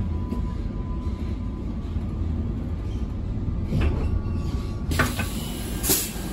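Low steady rumble of a stopped Queensland Rail electric train standing at the platform, with three sharp knocks in the second half.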